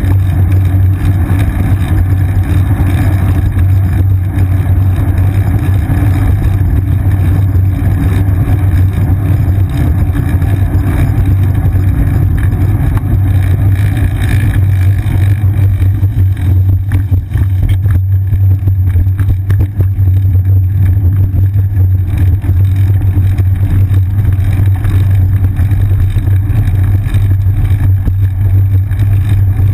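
Steady, loud rumble of wind and road vibration picked up by a seat-mounted action camera on a moving bicycle, strongest in a deep hum.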